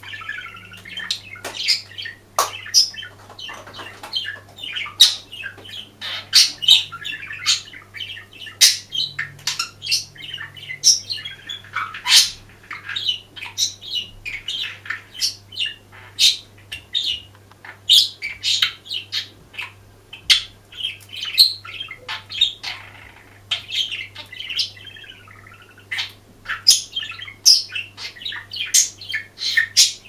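Budgerigar warbling: a continuous, rapid chatter of short chirps, clicks and squawky notes with a few warbled glides.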